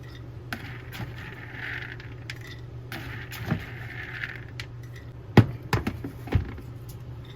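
Dry yellow popcorn kernels being poured into glass mason jars, a loose rattle with scattered clicks, and a few sharper knocks about two-thirds of the way through, the loudest of them glass being knocked.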